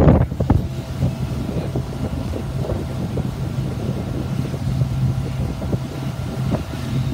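Pontoon boat's motor running at a steady cruise, a low even hum, with water and wind rushing past; a gust of wind buffets the microphone right at the start, then eases.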